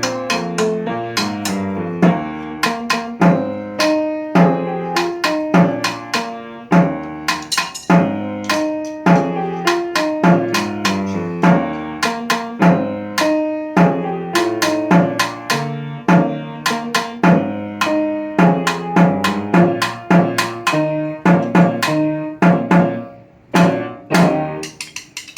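Band music: pitched instruments playing a melody over drums in a steady beat, with sharp percussive attacks on many notes. The music thins out and falls away about two seconds before the end.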